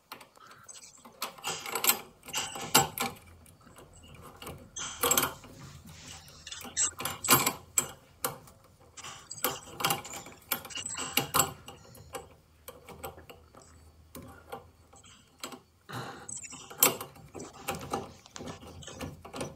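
Irregular metallic clicks and rattles of a nut and pipe fittings being worked onto a boiler's gas valve by hand.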